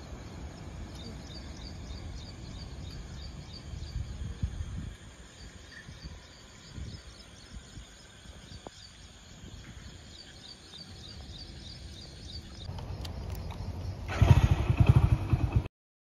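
Low, uneven wind rumble on the microphone with a regular high chirping repeating a few times a second; near the end a motorcycle engine runs loudly for under two seconds, then the sound cuts off suddenly.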